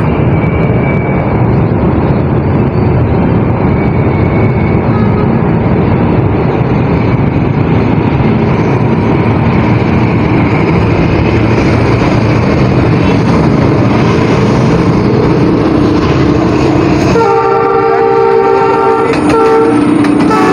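Pakistan Railways ZCU-20 diesel-electric locomotive hauling an express passenger train, approaching and running past with a loud, steady rumble of engine and wheels. About seventeen seconds in, it sounds its horn for about two seconds, a chord of several tones.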